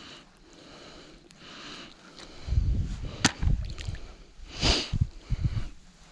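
Gillnet being pulled by hand out of a river: water sloshing and splashing off the wet mesh, with uneven rustling from the handling. There is a sharp click around the middle and a short splash soon after.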